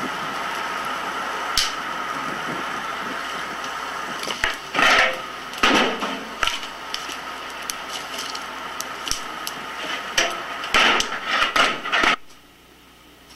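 Steady hiss of a wood-fired outdoor stove boiling a steaming pot, with a series of wooden knocks and clatters as firewood and the firebox are handled, busiest near the end. All of it cuts off suddenly shortly before the end.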